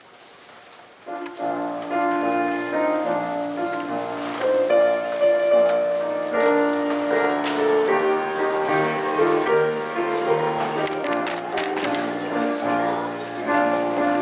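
Instrumental church postlude begins about a second in: held chords on a keyboard instrument, changing every second or so.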